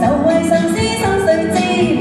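Live pop song: a held melody line with vibrato over a full backing accompaniment.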